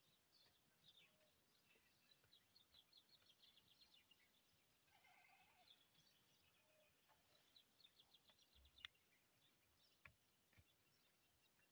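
Near silence with faint small birds chirping: quick runs of high twittering notes, and two faint short knocks in the second half.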